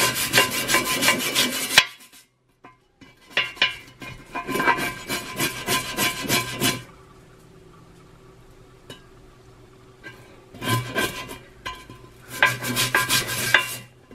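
Dish brush scrubbing the ridges of a wet cast iron grill pan: quick rasping strokes in bouts, with a pause of a few seconds in the middle.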